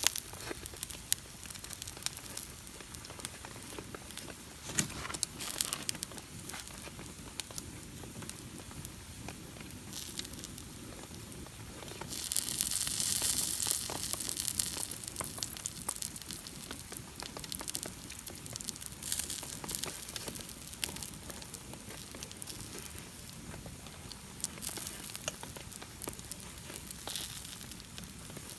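Wood campfire crackling with scattered sharp pops, and a louder hiss for about three seconds near the middle.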